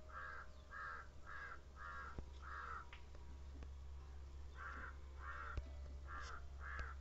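A crow cawing repeatedly, about two caws a second: a run of about five, a short pause, then four more. A faint steady low hum lies underneath.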